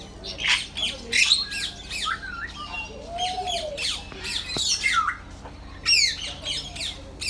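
A flock of parrots squawking and chirping, many short sweeping calls overlapping, with one lower drawn-out whistle about three seconds in.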